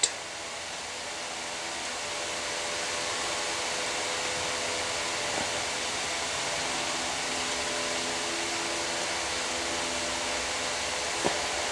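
A steady airy hiss with a faint low hum, growing a little louder over the first couple of seconds, with a faint click about five seconds in and another near the end.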